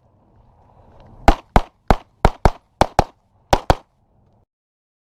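Pistol shots fired rapidly during a USPSA stage: nine shots, mostly in quick pairs about a quarter second apart, typical of double taps on targets. The sound cuts off suddenly a moment after the last pair.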